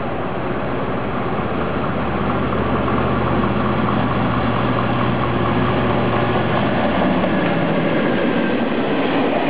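Red DB diesel locomotive passing close at the head of a freight train, its engine a steady low drone. About seven seconds in the engine sound drops away and the rolling noise of the freight wagons passing takes over.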